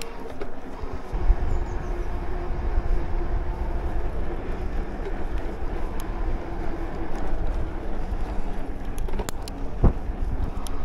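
Electric mountain bike on the move: a steady motor whine under a low rumble of tyres and wind on the microphone, which grows heavier about a second in, with a few light clicks.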